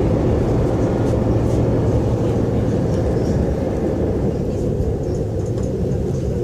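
Diesel passenger railcar heard from inside while running: a steady low engine hum under the continuous rumble of the train in motion, easing slightly in loudness.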